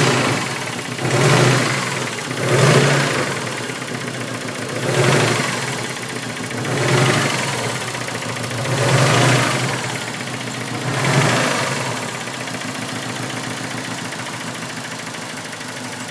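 Car engine blipped about six times, each rise and fall a second or two long, then left idling steadily for the last few seconds. It runs with a knock that the owner takes for a worn main bearing shell.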